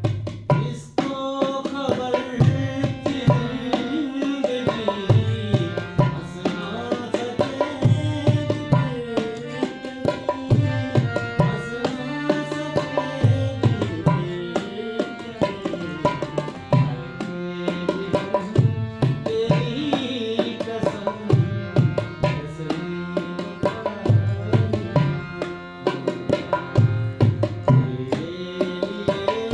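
Dholki barrel drum played in a quick, steady rhythm under a harmonium melody, in a live Punjabi folk and ghazal ensemble.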